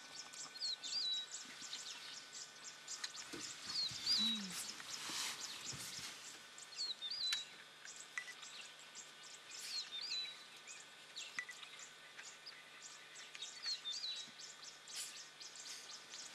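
A bird repeating a short, high, hooked call about every three seconds, five times, with many faint ticks and rustles in between.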